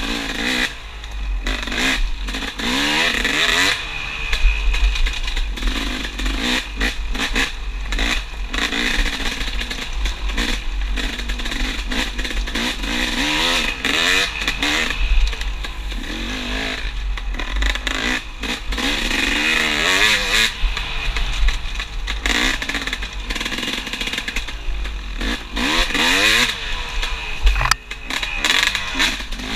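Dirt bike engine revving up and falling back again and again as it is ridden hard along a rough trail, with knocks and rattles from the bumps over a steady low rumble on the microphone.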